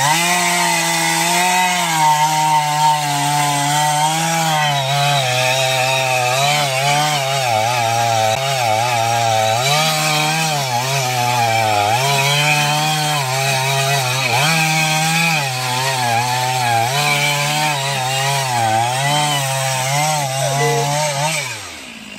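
Stihl MS 461 two-stroke chainsaw cutting through a large tree trunk at full throttle. Its engine pitch dips and recovers every second or two as the chain bites into the wood. Near the end the throttle is let off and the engine drops away.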